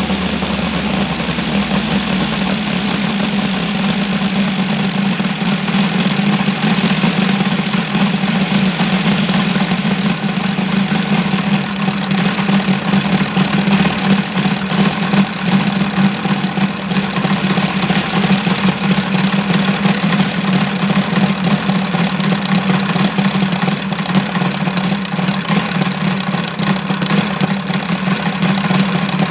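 OS FR5-300 five-cylinder four-stroke radial model engine running steadily at a constant speed.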